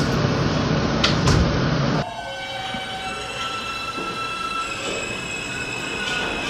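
Recorded New York City subway train sound: a loud rumble with a couple of knocks cuts off abruptly about two seconds in, then the train pulls away with the whining tones of its electric traction motors.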